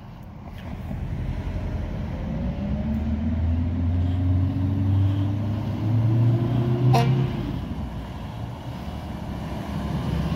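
Fire engine and other emergency vehicles driving up through an intersection: a heavy engine's pitch rises over several seconds as it accelerates, over a steady low rumble. There is one sharp click about seven seconds in.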